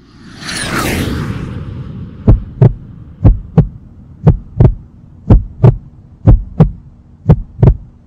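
A whooshing swell, then deep paired drum thumps about once a second over a low steady hum, like a heartbeat: the intro of a hip-hop backing track.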